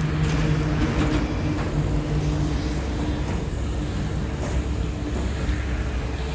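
Heavy diesel construction machinery running: a steady engine hum over a low rumble, the hum easing off after about two and a half seconds.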